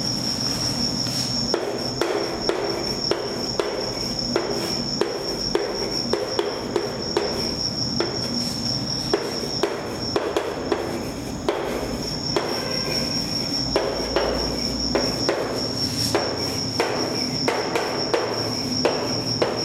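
Chalk writing on a chalkboard: irregular taps and short scrapes as the chalk strikes and drags across the board. Under it runs a steady high-pitched pulsing trill.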